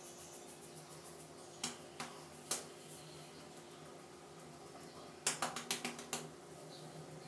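Fingertips rubbing and scratching the scalp through thick long hair, with faint scratchy rustling and sharp crackling clicks: a few single ones early, then a quick run of about eight about five seconds in.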